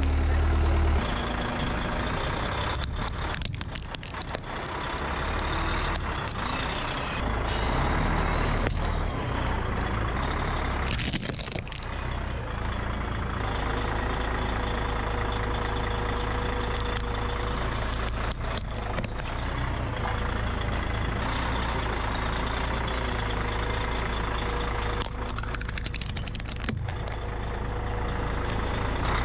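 Vehicle engine running close by with a steady low rumble as the tyres roll over small objects. Several sharp cracks and crunches come through as plastic and shell break under the wheels.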